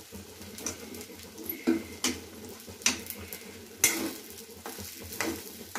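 Metal spoon stirring soaked sago pearls and diced potato in an oiled metal pan, scraping and clacking against the pan at irregular intervals, with the sharpest clack about four seconds in. Oil sizzles under the stirring.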